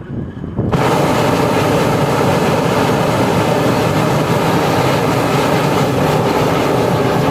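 Hot-air balloon propane burner firing: a loud, steady roar that starts suddenly less than a second in and holds without a break.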